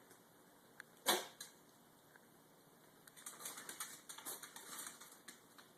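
A pet's single sharp sneeze about a second in, then a run of light clicks and rustling for a couple of seconds near the end.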